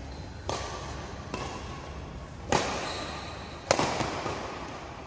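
Badminton rackets smacking a shuttlecock back and forth in a rally, about four sharp hits, three of them loud, each echoing in a large hall.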